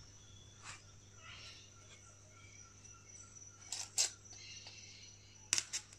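Quiet handling sounds of pinning an insect on a styrofoam spreading board: fingers working paper spreading strips and glass-head pins, with two short clusters of sharp clicks, one about two-thirds through and one near the end.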